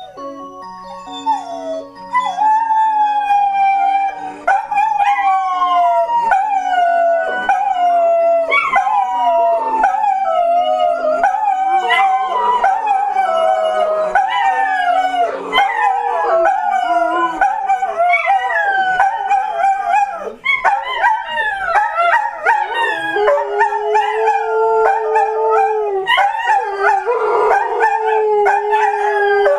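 Dogs howling together along with a clock's hourly chime tune: many overlapping long howls that slide down in pitch, with one lower howl held steady near the end. The clock's melody notes sound underneath during the first half.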